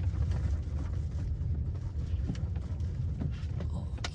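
Car driving slowly along a narrow road: a steady low rumble of engine and road noise, with a few light knocks.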